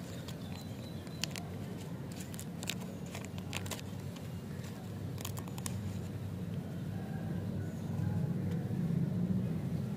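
A lollipop's wrapper being torn open and peeled off by hand, giving scattered sharp crinkles and crackles in the first half, over a steady low hum.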